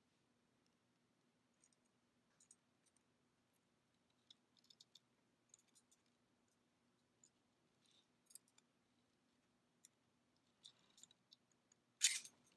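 Faint, scattered small metallic clicks of two pairs of jewelry pliers opening and closing a metal jump ring, with a brief louder rustle near the end.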